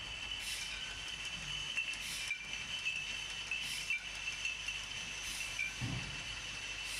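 661 EPV beer bottling microblock running: a steady high whine, with a short hiss about every second and a half and a dull knock near the end.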